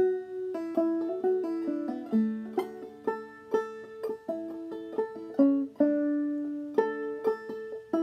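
Five-string banjo played clawhammer style in double D tuning (aDADE): a steady run of plucked notes and brushed strums picking out a phrase of an old-time D tune.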